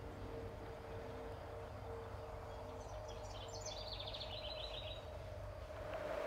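Faint outdoor background noise with a steady low hum, and a small songbird singing a quick trill of many short high notes for about two seconds midway through.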